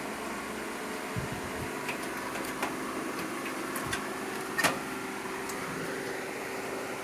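A few light clicks and knocks of a motherboard being handled and positioned in a metal PC case, the loudest about four and a half seconds in, over a steady hum.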